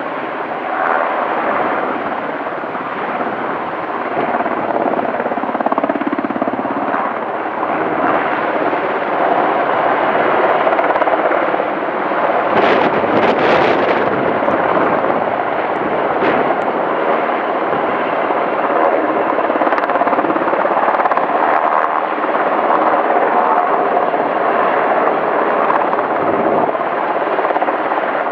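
UH-60 Black Hawk helicopter hovering low over water with a bucket slung beneath it: loud, steady rotor and turbine noise, with a few brief sharper crackles about halfway through.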